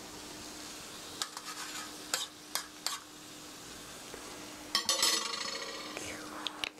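A spoon stirring sauce in a pan, with sharp clinks and scrapes against the pan, a few between one and three seconds in and a dense cluster around five seconds in, over a steady hiss from the hot pan.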